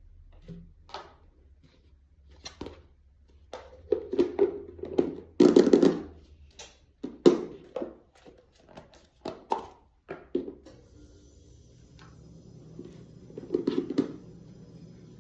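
Irregular knocks and thunks of things being handled, then about ten seconds in a steady hum with a faint held whine starts, like a microwave oven switched on to run.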